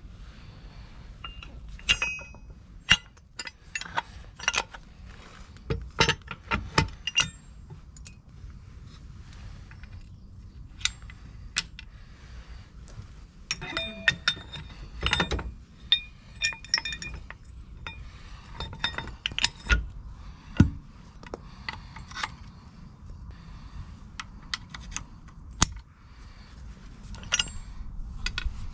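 Steel lower link arm being refitted to a John Deere 4520 compact tractor's three-point linkage: irregular metal clinks and knocks as the arm is handled onto its pivot mounting. There are a few louder knocks among them, the loudest about two-thirds of the way through.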